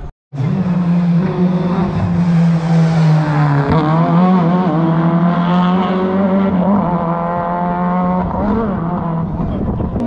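Historic rally car engine revving hard on a special stage, its pitch dropping and climbing again about four seconds in as it works through the gears. The sound begins after a sudden split-second gap.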